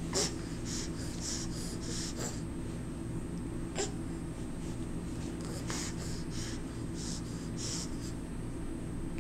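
Steady low hum with runs of short, soft hisses, a few a second, and a few light clicks.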